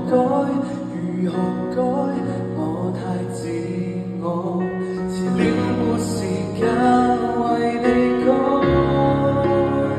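Live piano ballad: a male singer with piano accompaniment, heard in a large arena from among the audience.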